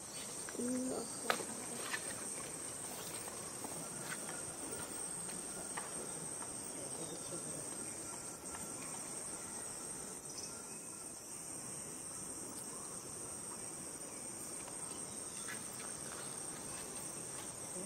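Insects in the forest making a steady, high-pitched continuous drone. A short low call and a click or two sound in the first couple of seconds.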